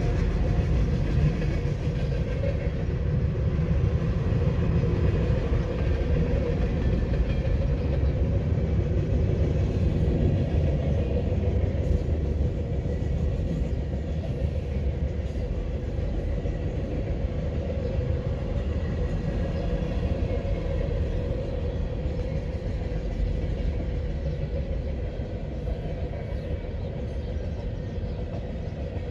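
Freight train rolling past, a steady low rumble of cars on the rails that eases slightly near the end.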